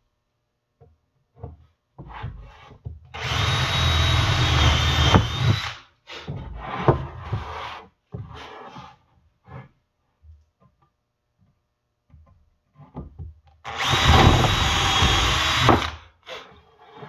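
Cordless drill boring holes into the corners of a wooden frame, in two runs of about two and a half seconds each, about ten seconds apart. Between the runs, boards knock and rub as they are handled.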